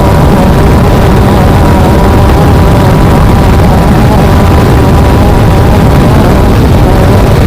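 Off-road race vehicle's engine running hard at high, fairly steady revs, heard loud from onboard with heavy rumble and rattle.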